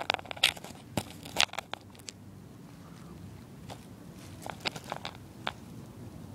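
Close crackling rustles and sharp clicks near the microphone, thick for about the first two seconds, then a few scattered ones.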